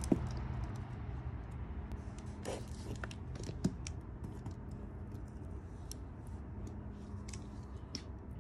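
Dish soap poured over a block of gym chalk on a ceramic plate: scattered small wet ticks and crackles, with two sharper knocks, one right at the start and one about three and a half seconds in, over a steady low hum.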